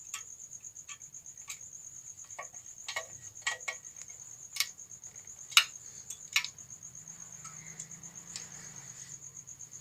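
A cricket trilling steadily in pulses, with a series of sharp clicks and taps from small metal parts and tools as the electric iron's nut and wire connections are refitted; the loudest clicks come just past halfway.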